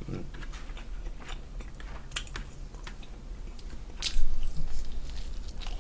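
A person eating a slice of pizza: scattered small clicks and rustles, then a louder crunching bite into the slice about four seconds in, followed by chewing.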